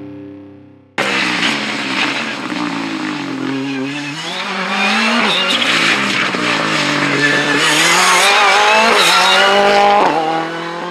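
Ford Fiesta rally car's engine at full throttle on a stage, its pitch rising and dropping repeatedly through the gears and on lifts. It starts suddenly about a second in and stops abruptly near the end.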